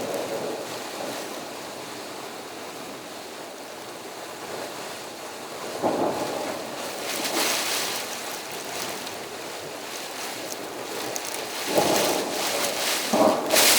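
Steady rain and wind of a thunderstorm, an even hiss with brief louder swells about six seconds in and twice near the end.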